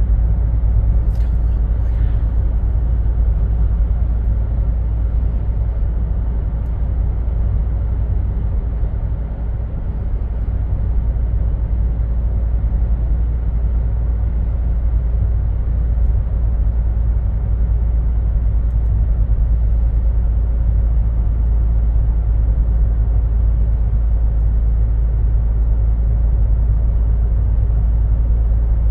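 Steady low road and engine rumble of a car driving at speed, heard inside the cabin.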